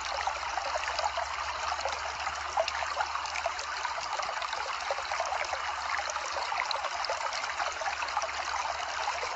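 Running water trickling steadily, with many tiny splashes and drips.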